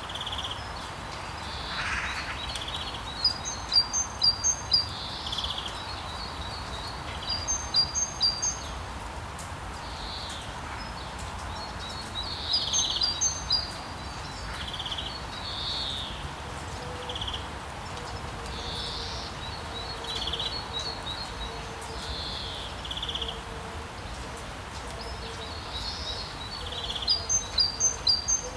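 Songbirds singing: a repeated phrase of quick high notes comes back about every four to five seconds, with scattered single chirps between, over a steady background hiss.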